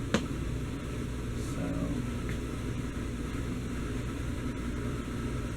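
1984 Casablanca Delta ceiling fan running steadily, a low even hum with a rush of moving air. A single sharp click comes just after the start.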